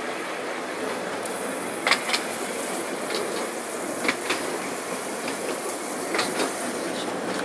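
Tram running along the track, heard from its open upper deck: a steady rolling rumble with paired clicks of the wheels over rail joints about every two seconds.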